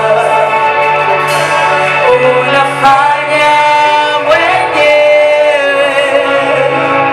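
Gospel vocal group singing a Swahili worship song, with held notes over a steady low bass accompaniment.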